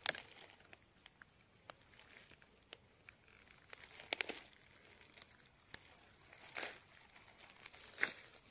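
Footsteps rustling and crackling through dry fallen leaves and twigs on a forest floor. They come as a few scattered steps with quiet gaps between.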